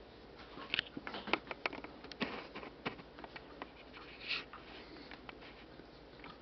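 Jack Russell terrier's wet mouth noises, a run of small irregular clicks and smacks like licking or chewing, with a brief breath noise about four seconds in.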